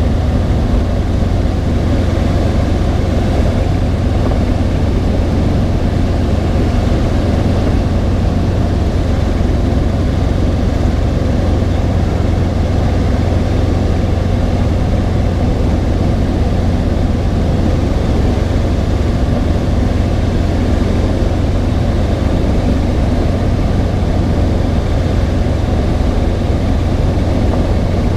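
Robinson R22 helicopter in cruise flight, heard from inside the cabin: the four-cylinder Lycoming piston engine and rotors running at a constant, steady level, dominated by a low drone.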